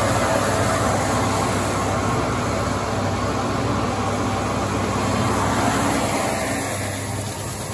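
Farm machinery running steadily: a tractor engine and grain auger conveying peas, a continuous mechanical hum and rush that eases slightly near the end.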